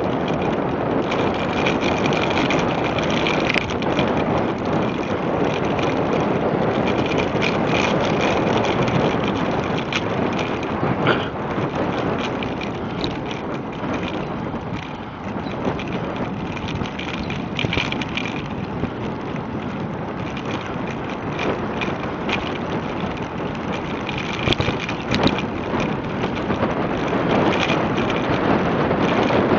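Wind buffeting the microphone over steady tyre rumble from a bicycle riding on a paved trail, with a few sharp knocks.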